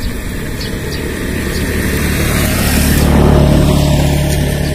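A motor vehicle passing close by on the road, its engine hum and tyre noise swelling to a peak about three seconds in and then easing off.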